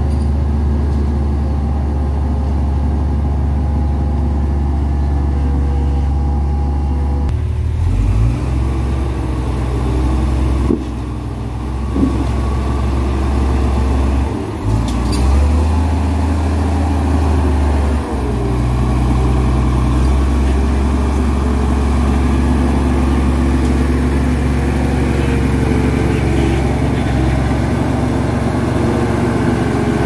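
Komatsu D58E crawler bulldozer's diesel engine running steadily as the machine moves and pushes soil. Its low note dips and shifts several times between about 7 and 18 seconds in.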